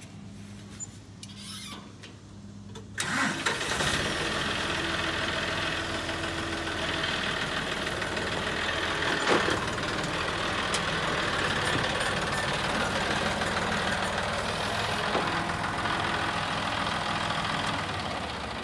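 John Deere utility tractor's diesel engine, low and quiet at first, coming on loud about three seconds in and then running steadily as the tractor climbs the dovetail ramp onto the trailer.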